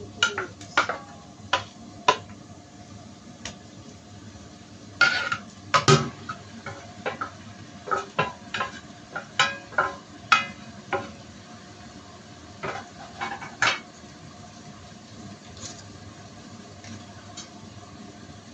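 A metal plate and spoon clinking, knocking and scraping against a granite-coated cooking pot as raw chicken pieces are tipped in, a run of sharp knocks that stops about fourteen seconds in. Under it a faint, steady sizzle of the chicken hitting the hot pot.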